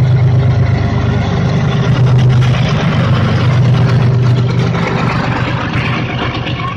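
Freight train passing close by: the locomotive's low steady engine drone, easing after about five seconds, under the continuous rolling noise of the covered goods wagons on the rails.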